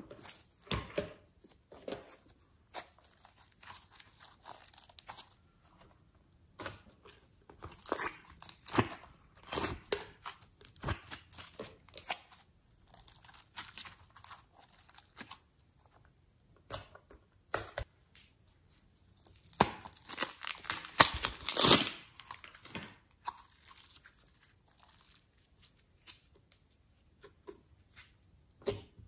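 Soft modelling clay squeezed, pulled apart and pressed by hand into slime, making irregular crackles and sticky clicks. They come thickest about eight to twelve seconds in and are loudest around twenty to twenty-two seconds in.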